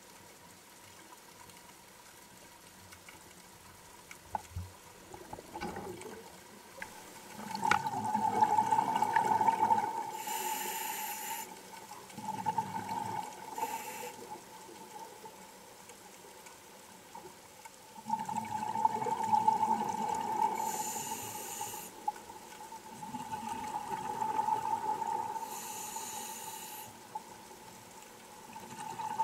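Scuba diver's regulator breathing, heard underwater: long bubbling exhalations alternating with shorter hissing breaths, in slow cycles that begin about eight seconds in and repeat every five or six seconds.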